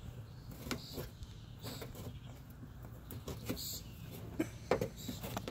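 Light clicks, taps and rustles of the plastic bumper cover, wheel-well liner and bumper bracket being handled by hand, with a few sharper clicks near the end, over a faint steady low hum.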